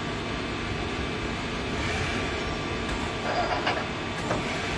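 A 1995 Mori Seiki CL-20A CNC lathe running: a steady mechanical hum with faint whining tones. A higher whine rises briefly about two seconds in, and a few light clicks and knocks come near the end.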